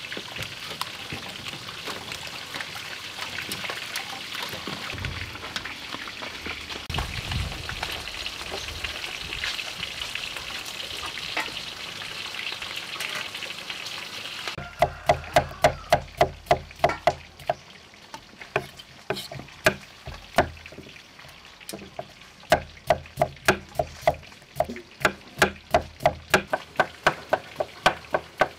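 Eel and catfish deep-frying in a wok of oil, a steady sizzle. About halfway through this gives way to a knife chopping cucumber on a wooden cutting board: quick runs of sharp knocks with short pauses between them.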